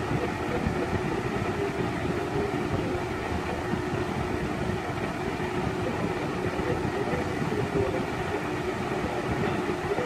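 Lasko 20-inch box fan (model B20200) running: a steady rush of air with a steady hum from the motor and blades.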